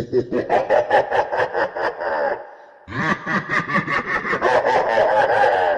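Evil laugh sound effect: a villain's rapid 'ha-ha-ha' cackle in two runs, with a short break about two and a half seconds in.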